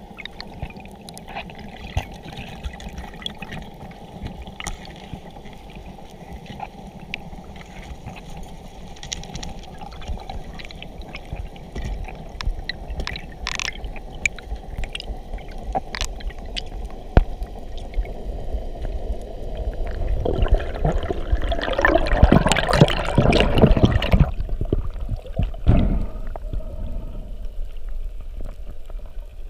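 Underwater sound picked up on a diver's camera: a steady low water rumble with scattered sharp clicks and crackles. About two-thirds of the way through it swells into a dense, loud rush of noise for about four seconds, then settles again.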